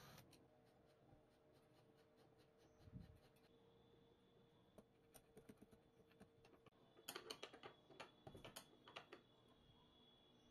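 Near silence broken by faint, scattered light clicks and taps, thickest from about seven to nine seconds in: a screwdriver shaft knocking against a plywood cam disc and its bolts as it is handled by hand.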